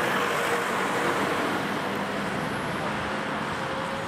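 Road traffic noise on a wet road: a steady hiss of tyres and the hum of passing car engines.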